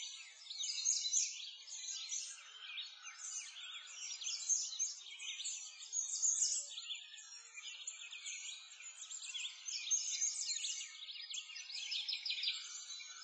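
A dense chorus of small birds chirping and twittering without pause, many quick high calls overlapping.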